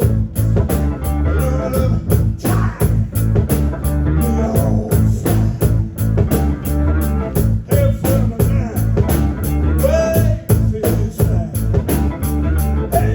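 Rock band playing live, with a steady drum beat and heavy bass.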